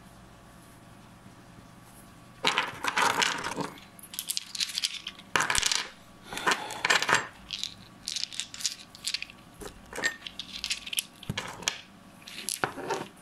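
Small hard stones clinking and clattering against each other as they are handled, starting about two and a half seconds in and going on in short clusters of sharp clicks.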